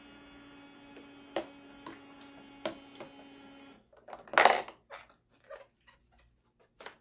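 Toy kitchen sink's pump faucet running, a steady hum with trickling water, which cuts off about four seconds in, with a few plastic knocks over it. Then plastic toy dishes clatter and knock, the loudest knock just after the pump stops.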